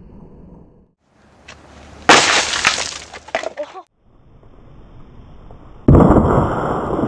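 A sudden sharp crash about two seconds in, with a scatter of high clicking and crackling debris for about a second and a half before it cuts off. Near six seconds a small explosive charge buried in dirt goes off with a loud, deep blast, and dirt sprays out around a small glass bottle.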